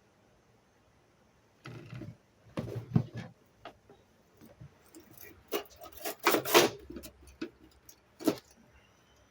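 Irregular knocks and clatters of objects being handled and set down, starting about a second and a half in, with the loudest bumps near the middle and one last knock near the end.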